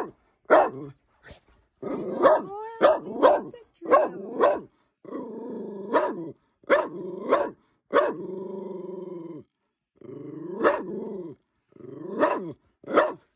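A dog barking repeatedly in sharp single barks, with longer wavering whines and growls between them: a dog alarm-barking at wild turkeys it can see outside.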